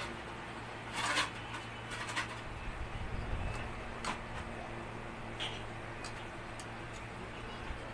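Screwdriver shaft knocking and scraping lightly against a small plastic cup a few times, the loudest knock about a second in, over a steady low hum.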